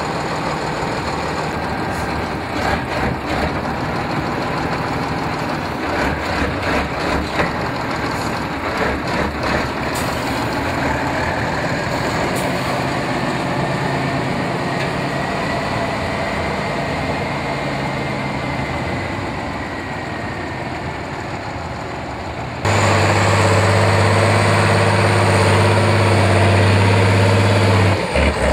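Tatra trial truck's diesel engine running, with scattered knocks and clatter over it for the first part. About three-quarters of the way through, the sound cuts abruptly to a louder, steady engine note as the truck climbs a steep bank under load.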